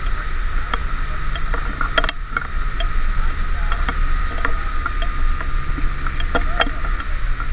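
Towboat engine running steadily at towing speed, with rushing water and spray, a steady high whine and scattered short clicks and ticks.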